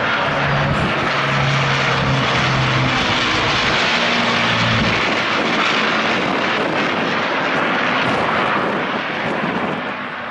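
Avro Lancaster's four Rolls-Royce Merlin piston engines droning loudly as the bomber flies its display, holding steady and easing off slightly near the end.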